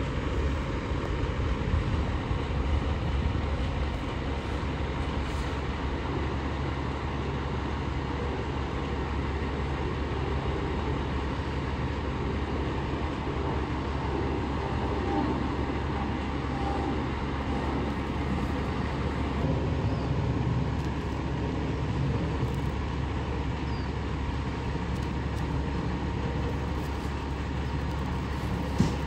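Diesel garbage truck engine running steadily with a low drone, swelling a little at times. One sharp click near the end.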